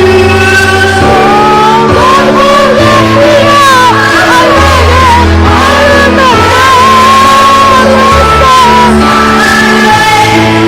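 A voice singing a wavering, gliding melody over a loud backing track of sustained bass notes and chords.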